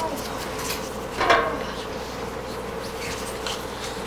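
A steady electrical buzz, with a knock about a second in and a few lighter taps as an apple and a pear are set down on a tabletop.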